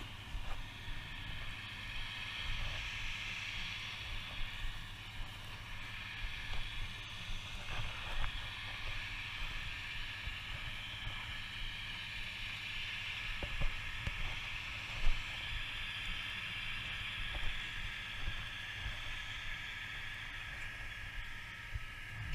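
Wind rumbling on the microphone under a steady high hiss, with a few scattered knocks or thuds, the sharpest about fifteen seconds in.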